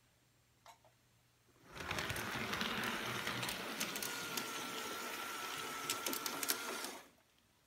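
LGB G-scale model electric locomotive running past on brass track: the motor and gears whir and the wheels run on the rails with sharp clicks, and a thin steady whine joins in midway. The sound comes in about two seconds in and drops away again after about seven.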